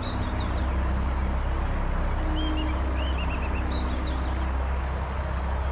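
Steady low outdoor rumble with birds chirping short phrases, once near the start and again about halfway through.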